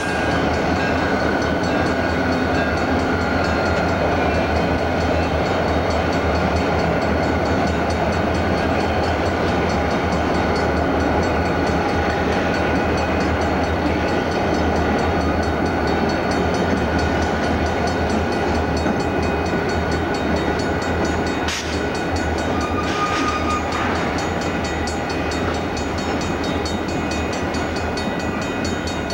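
Santa Fe diesel-hauled freight train passing close by: the locomotives' engines hum beneath steady wheel and rail noise as the lead units give way to rolling tank cars. Two sharp clanks come about three-quarters of the way through.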